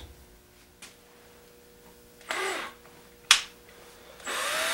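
Cordless drill driving screws into wood: a short whirr a little after halfway, a sharp click, then the drill motor starts again near the end, its pitch rising.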